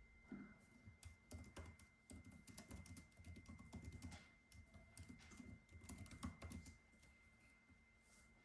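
Computer keyboard typing: quick, irregular runs of soft key clicks that thin out near the end. A faint steady high whine sits underneath.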